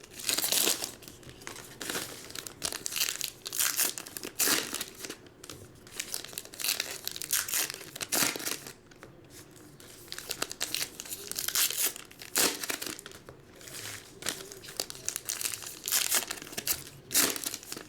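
Trading card pack wrappers being torn open and crinkled by hand, in irregular bursts of rustling and tearing.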